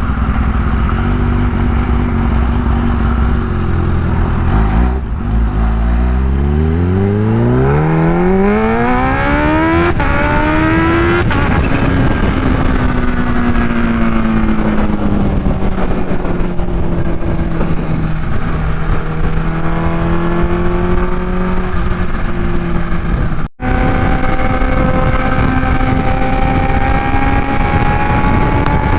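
Kawasaki Ninja H2's supercharged inline-four through a Vandemon exhaust, ridden at speed. About five seconds in the revs climb steadily for some six seconds under acceleration. The note then falls back and holds steady, and after a brief dropout it settles at a higher steady pitch.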